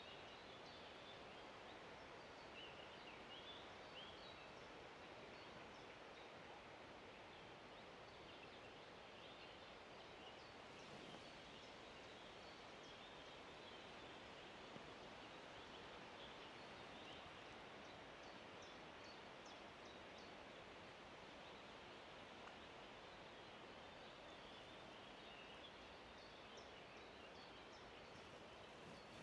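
Faint outdoor ambience: a steady soft hiss with scattered faint, distant bird chirps.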